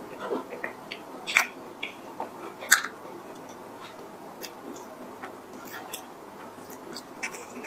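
Crisp cookie-crust shell of a cream puff being pulled apart by hand, close-miked. There are two sharp cracks in the first three seconds, then scattered quieter crumbly crackles.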